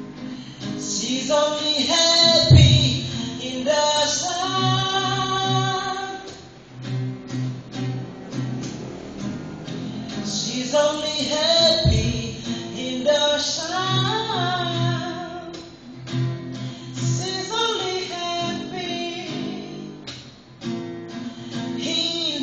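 A man sings a melodic song with plucked or strummed guitar accompaniment and a steady low pulse. There is a deep thump twice, about 2.5 and 12 seconds in.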